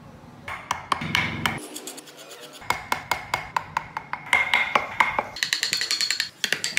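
A carving chisel is tapped with a wooden mallet in quick light strokes, about four or five a second, as it cuts detail into a wooden model car body. Each stroke gives a short ringing click.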